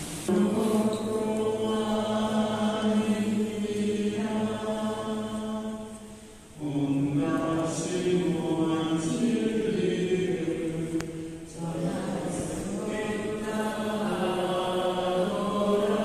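Church congregation singing a slow liturgical chant at a service. The notes are held and come in three phrases, with brief breaks about six and eleven seconds in.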